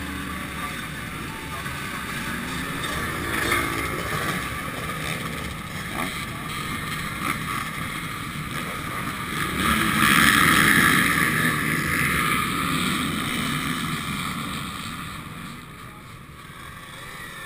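KTM SX125 two-stroke dirt bike engine running at low revs while the bike is ridden slowly, heard through a helmet-mounted camera. It swells about ten seconds in, then quietens near the end as the bike comes to a stop.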